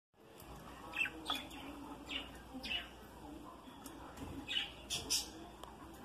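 Budgerigars giving short, scattered chirps, about half a dozen spread over a few seconds.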